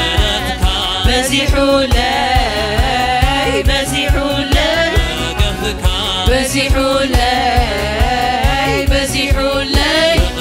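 Tigrinya worship song performed live: a singing voice with band accompaniment over a steady, fast drum beat.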